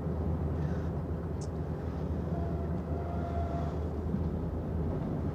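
Steady low rumble of a moving public-transport vehicle, heard inside its passenger cabin, with a faint high tone briefly near the middle.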